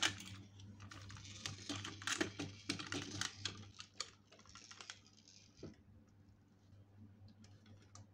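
Light plastic clicks and clatter of a toy truck full of marbles being rolled up onto a toy flatbed trailer, the marbles knocking in its bin. The clicking thins out to a few faint ticks after about five seconds.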